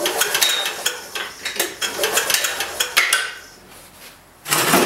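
Quick metallic clinks and rattles of hands handling a military diesel generator's metal frame and fittings, pausing about three seconds in, then a louder scrape near the end.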